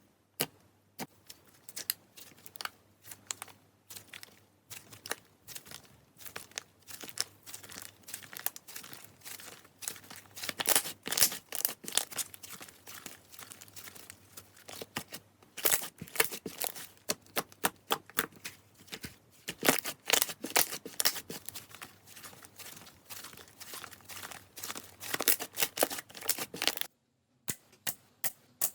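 Slime being squeezed and worked by hand, giving dense, irregular crackling pops and clicks. The sound stops abruptly near the end, and a few sharper clicks follow.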